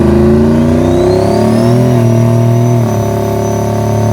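Engine of a truck fitted with a Garrett G42-1200 turbo, running at raised revs, with the revs easing down a little near three seconds. A high turbo whine glides upward over the first two seconds and then holds steady.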